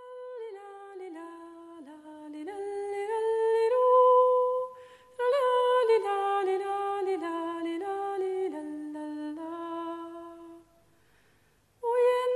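Unaccompanied solo voice singing a slow, wordless Scandinavian folk melody, holding each note and stepping between them, with a brief break about five seconds in and a longer pause near the end.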